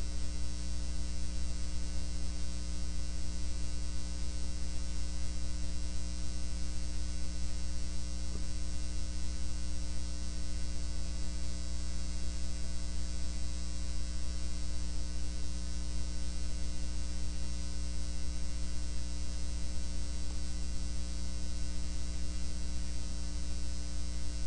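Steady electrical mains hum with a thin buzz over it, unchanging, with no clicks or motor noises standing out.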